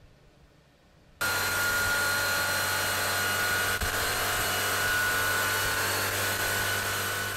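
Bentley twin-turbo W12 engine running at a steady speed on a test-bench dynamometer: a loud, even rush with a low hum and a high whine over it. It cuts in suddenly about a second in and cuts off abruptly near the end.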